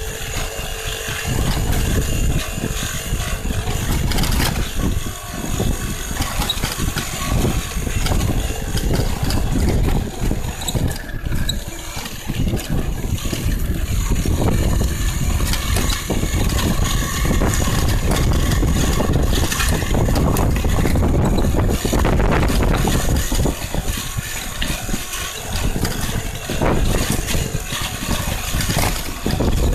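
Electric downhill mountain bike running fast over a rough dirt trail: a steady low rumble of wind and tyre noise, with irregular rattles and knocks from the bike jolting over bumps and stones.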